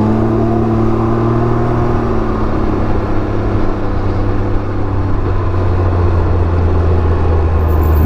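Can-Am Ryker 900's three-cylinder engine pulling away under throttle, its pitch rising gently over the first couple of seconds. It then eases off and settles into a steady lower hum for the rest of the time.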